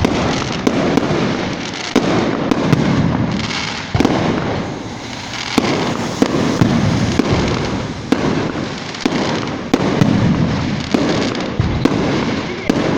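Fireworks going off: a continuous rumble of explosions with sharp bangs at irregular intervals, about one a second, easing briefly about four seconds in.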